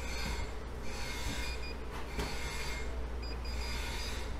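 Short high electronic beeps from the keypad of an Optima OP-900BSL digital weight indicator as its buttons are pressed to enter a calibration setting, recurring a few times over a steady low hum.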